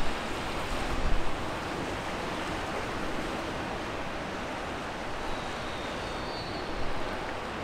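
Steady wash of the sea around a stone pier, mixed with wind on the microphone that gusts in low rumbles about a second in.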